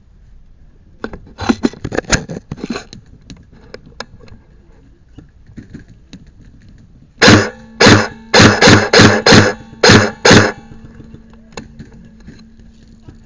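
Airsoft rifle firing about eight short bursts in quick succession from about seven seconds in, with a steady motor hum under the shots. Lighter clatter and knocks come a second or two in.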